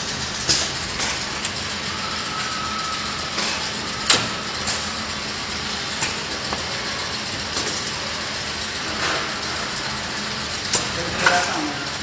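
Steady hum and hiss of a running conveyor test line, with irregular sharp clicks and knocks every second or two as a loaded pallet moves along the rollers into the test station.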